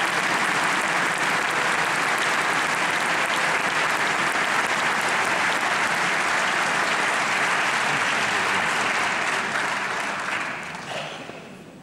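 Audience applauding steadily, then dying away over the last two seconds or so.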